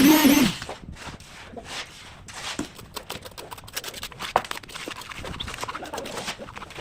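An electric power tool's motor winds down, its whine falling in pitch and stopping about half a second in. Scattered light scrapes and knocks follow, typical of hand work with tools on masonry.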